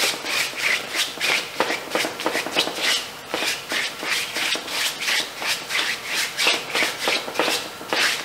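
Paintbrush scrubbing acrylic paint onto a stretched canvas in quick back-and-forth strokes, about two to three scratchy strokes a second.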